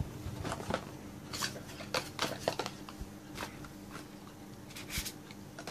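Cardboard phone packaging being picked up and moved across a table: a scattered series of light taps, clicks and rustles, over a faint steady hum.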